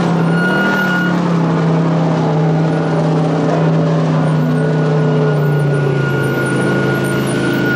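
Audi TT race car's engine running at low, steady revs as the car rolls slowly past, its pitch easing down slightly over the last few seconds.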